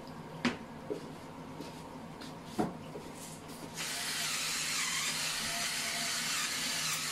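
Sliced potatoes frying in olive oil in a pan: a steady sizzle that swells up suddenly about four seconds in. Three light knocks come before it.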